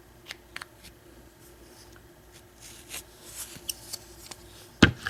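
Kwikset lock cylinder being taken apart by hand: light metallic clicks and rattles of small parts, with one sharp clack near the end.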